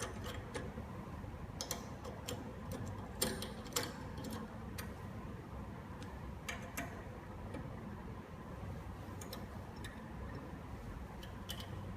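Scattered light metallic clicks and taps, irregularly spaced, as the 90-degree peel fixture's connecting block is screwed tight onto the test machine's load sensor, over a faint steady hum.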